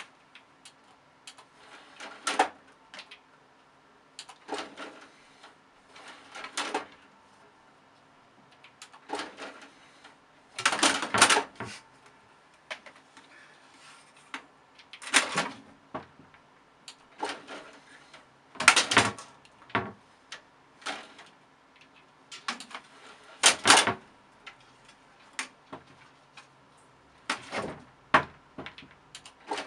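A cat swatting and clawing at a desktop computer's DVD drive tray and plastic front panel: irregular knocks and clattering scrapes every few seconds, some much louder than others, over a faint steady hum.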